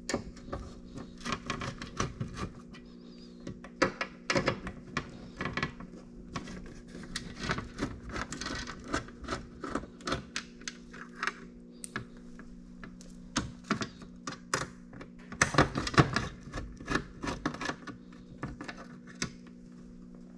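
Irregular metallic clinking and rattling of a loosely held licence plate against its frame on a 2003 Smart: the new-style plate is fixed by only two screws, so it clanks against the frame. A steady low hum runs underneath.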